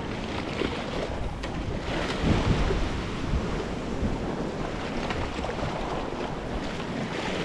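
Sea waves washing and breaking against a rocky shore ledge, with wind buffeting the microphone.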